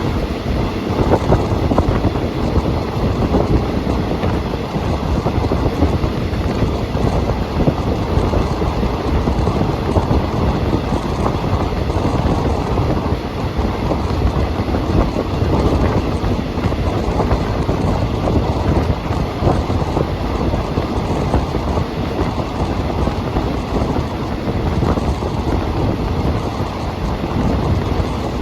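Passenger train running along the track, heard from aboard: a steady, loud noise of wheels on rails and the carriage rattling.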